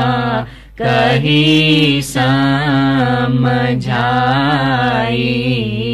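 A woman chanting a ginan verse in a slow, drawn-out melody, holding long notes, with a short breath break about half a second in.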